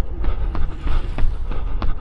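A runner's footsteps at a quick, even cadence of about three strides a second, over a steady low rumble of wind on the microphone.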